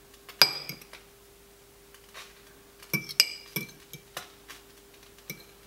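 Metal fork clinking against a small ceramic bowl while turning a potato ball in beaten egg: one sharp clink about half a second in, a quick cluster of clinks around three seconds in, and a few more after. A faint steady hum sits underneath.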